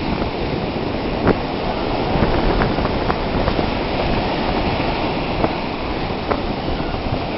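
Steady roar of surf on a beach, with wind buffeting the microphone and a few faint ticks.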